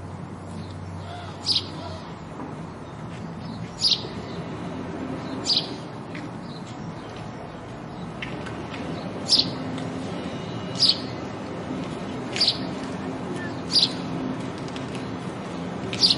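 House sparrow chirping: single sharp chirps, about eight of them, spaced a second or two apart, over steady low background noise.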